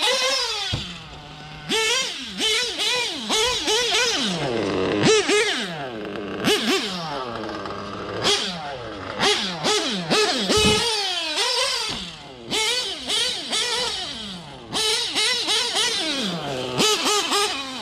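Novarossi .25 two-stroke nitro engine in a TLR 8X-T 1/8-scale truggy, revving up and down in quick bursts as it is driven. Its pitch climbs and falls again and again with the throttle and drops back sharply between bursts. The engine is still being broken in.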